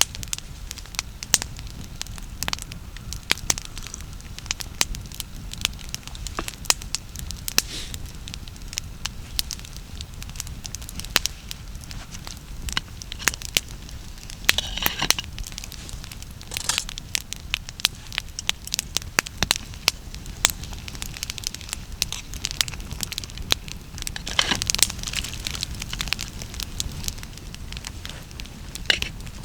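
Wood campfire crackling, with irregular sharp pops over a steady low rumble and a couple of brief denser flurries of crackle, about halfway and near the end.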